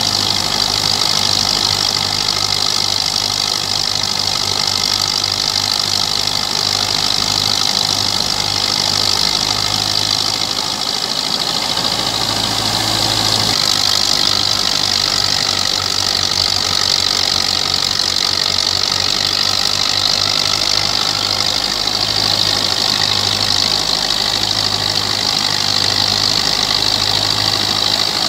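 Belarus 510 tractor's diesel engine running steadily under heavy load as it drives a grain thresher, with the thresher adding a steady high whirring hiss over the engine's low pulse.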